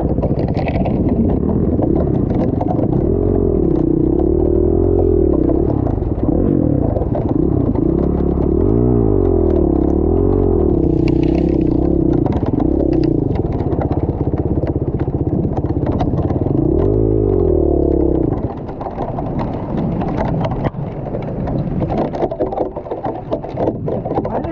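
Enduro dirt bike engine revving up and down repeatedly under load, with clatter and rattling. About three-quarters of the way through the engine drops away, leaving irregular clattering and knocks.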